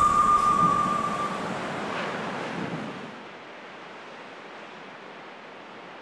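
Steady wash of sea surf and wind, with a thin high steady whistle held through the first second and a half. About three seconds in, the wash drops to a quieter hiss.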